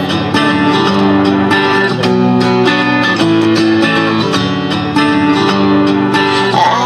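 Music with a strummed acoustic guitar playing a steady, repeating chord pattern.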